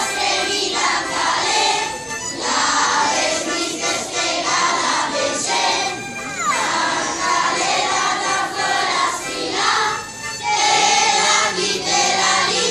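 Children's choir of primary-school pupils singing a Lombard folk song together, in phrases with brief breaks between them.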